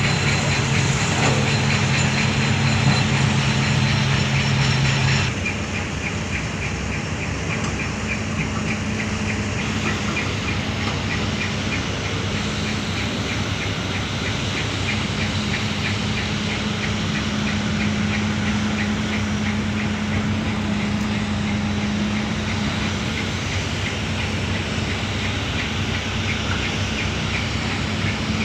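Heavy diesel earthmoving machinery, an excavator working with dump trucks, running steadily with a fast, even ticking over the engine drone. About five seconds in the sound drops abruptly to a slightly quieter, lower drone.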